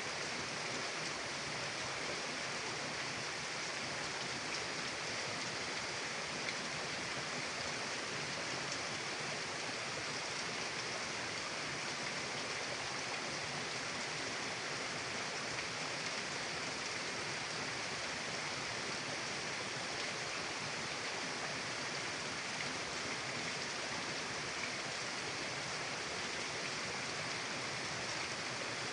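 Mountain river water rushing steadily over rocks, an even unbroken noise strongest in the upper range.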